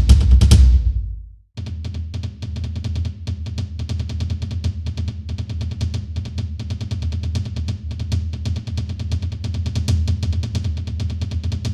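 A drum build-up sound effect: a loud stretch of drum hits dies away about a second in, and after a short gap a fast, steady roll of snare and kick drum strokes starts and keeps going.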